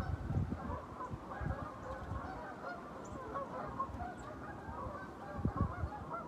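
A flock of geese honking continuously, many calls overlapping. Wind gusts buffet the microphone underneath, stronger near the end.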